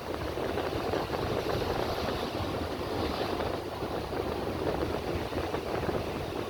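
Seashore wind buffeting the microphone over the wash of surf: a steady, rumbling noise without any distinct tone.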